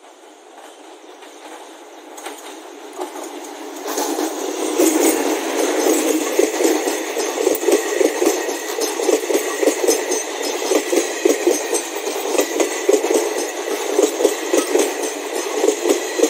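ICF passenger train approaching and running past close by, its wheels clattering rhythmically over the rail joints. The sound grows louder over the first few seconds, then stays loud as the coaches go by.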